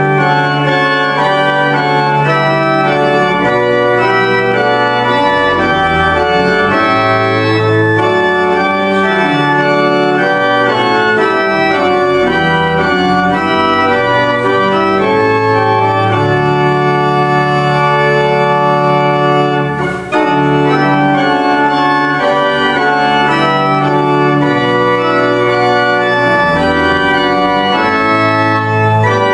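Church pipe organ playing a hymn in sustained full chords that move phrase by phrase, with a short break between phrases about twenty seconds in.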